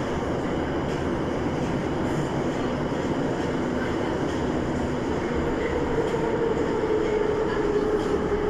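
81-717.5M 'Nomernoy' metro train running past at close range: a steady rumble and rush of wheels on rails. About halfway through, a whine comes in and slowly drops in pitch.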